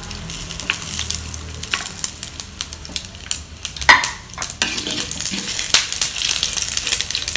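Dried red chillies, black peppercorns, cumin and fennel sizzling and crackling in hot oil in a nonstick frying pan, with many small pops. A sharp knock comes a little over halfway through, and in the second half a wooden spatula stirs the spices, scraping across the pan.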